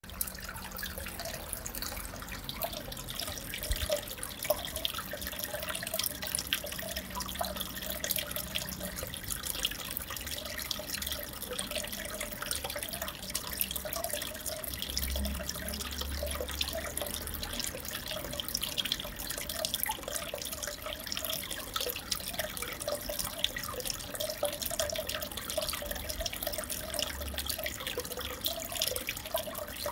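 Steady trickle of circulating aquarium water, with many small drips and splashes.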